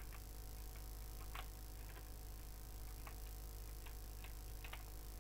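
Faint, irregular clicks of a computer keyboard and mouse, about ten of them, several bunched near the end, over a steady low electrical hum.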